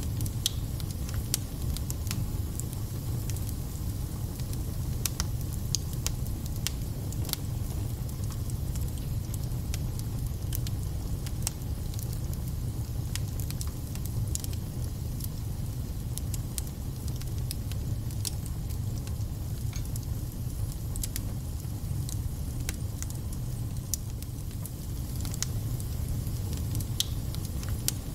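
Wood fire burning in a fireplace: a steady low rumble with frequent sharp crackles, pops and spits from the burning logs.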